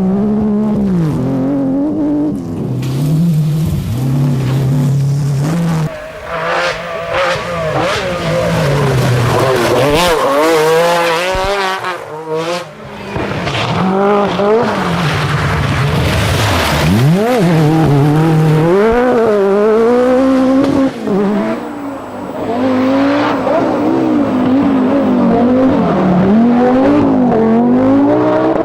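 1980s Group B rally car engines revving hard, the pitch climbing and dropping over and over as the drivers accelerate, shift and lift, with tyres skidding on the loose surface. A sharp rise in revs comes a little past the middle.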